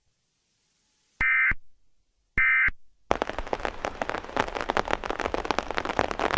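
Two short electronic data bursts, each about a third of a second and a second apart, in the style of an Emergency Alert System end-of-message signal marking the end of the alert. About three seconds in, dense crackling static takes over.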